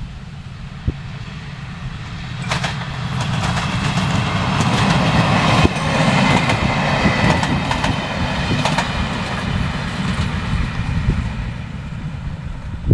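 HŽ 7121 series Macosa diesel multiple unit passing close by. Its engine and wheel noise rise as it approaches, peak about six seconds in with a run of clicks from the wheels over the rail joints, then fade as it moves away.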